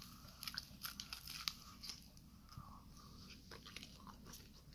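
Faint close-up crunching and chewing of a baked sambusa's crisp crust: a run of small sharp crackles, thickest in the first two seconds and sparser after.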